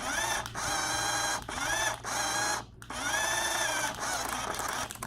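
Small electric motor of a toy Lamborghini car whirring in repeated bursts, each rising in pitch as it spins up and stopping abruptly, with brief gaps between; the last run lasts about two seconds.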